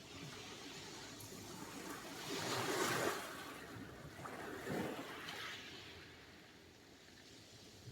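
Sea waves breaking on a shore. A wave crashes and peaks about three seconds in, a smaller one follows around five seconds, and then the wash dies away.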